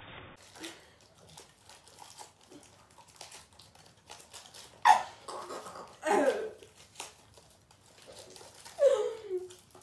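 Foil-and-paper gum wrappers crinkling and tearing as sticks of spearmint gum are unwrapped by hand, in a run of small crackles. Three short whimpering cries, each falling in pitch, come about halfway through, again a second later and near the end, louder than the crinkling.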